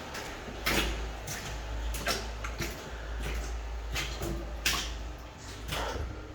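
Irregular footsteps and scuffs, a stroke every second or so, over a steady low rumble.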